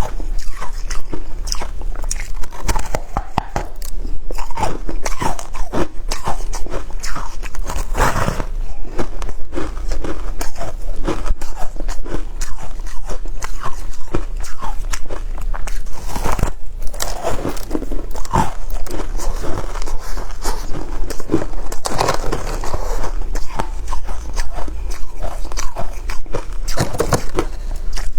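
Shaved ice being bitten and chewed close to the microphone: a steady stream of irregular crunches and crackles.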